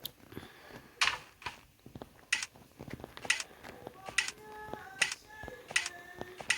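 A series of sharp clicks, roughly one every half second to a second, with short pitched beeps at different pitches among them in the second half.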